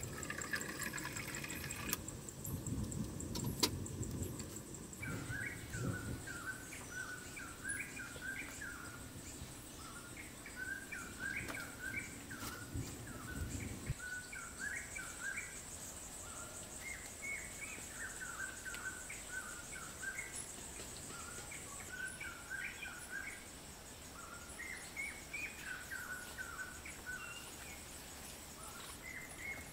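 Small birds chirping in short repeated calls over a steady high insect buzz. A low irregular noise underneath stops about halfway through.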